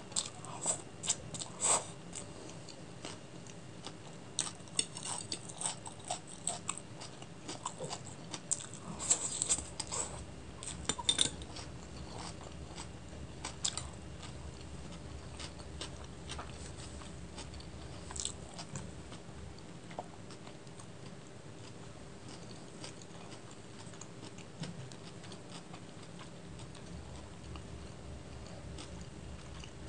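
Close-miked chewing and mouth sounds of a person eating chicken chow mein noodles with raw onion: sharp wet clicks and smacks, thick in the first dozen seconds and sparser afterwards, over a steady low hum.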